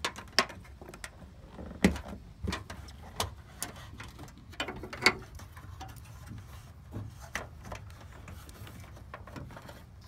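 Handling noise: irregular clicks and light knocks as a wire is pulled and pushed by hand along a truck's door jamb and through the plastic cowl panel, over a low steady rumble.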